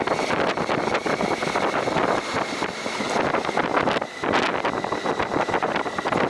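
Wind buffeting the microphone on a moving motorcycle, with road and engine noise underneath. There is a brief lull about four seconds in.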